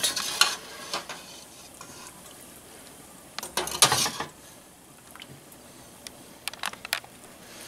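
Metal spoon stirring and scraping in a stainless steel pot of braising liquid: a few light clinks, a louder clatter against the pot a bit under four seconds in, and a quick run of clinks near the end.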